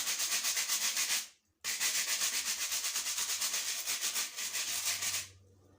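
Brush scrubbing the plastic outer casing of an electric shower head with quick back-and-forth strokes. It breaks off briefly about a second and a half in and stops near the end.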